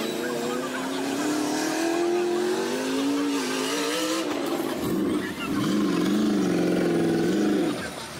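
Rock-racing buggy engine revving hard under load, its pitch climbing steadily for about four seconds; after a short break it revs up and down in several surges.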